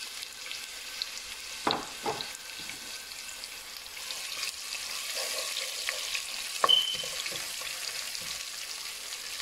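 Sliced onions frying in hot olive oil in a non-stick pan, a steady high sizzle, while a wooden spatula stirs them and knocks against the pan a few times.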